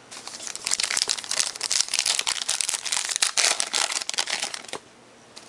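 Crinkly plastic trading-card packaging crinkling and crackling as hands work it, stopping shortly before the end.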